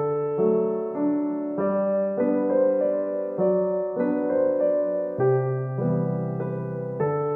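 Background piano music, slow and gentle, notes changing about every half second.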